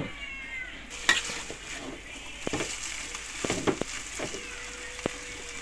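Metal spatula scraping and knocking against a large wok as a heap of noodles is tossed and mixed, with irregular strokes over a steady faint hiss.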